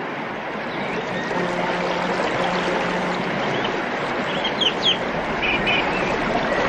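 Rushing water, like sea surf, with birds chirping over it in the second half, several short calls.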